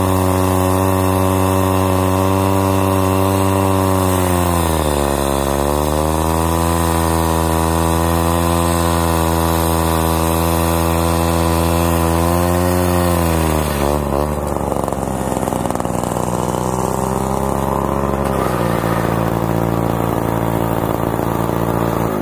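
Partner K12 90cc two-stroke cut-off saw engine running at speed. The pitch sags and recovers about five seconds in, wavers near thirteen seconds, then drops to a lower steady speed about fourteen seconds in and steps down once more near eighteen seconds.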